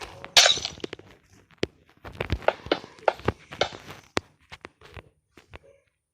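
Irregular knocks and clicks of handling or work, with a louder noisy burst about half a second in; the knocks thin out toward the end.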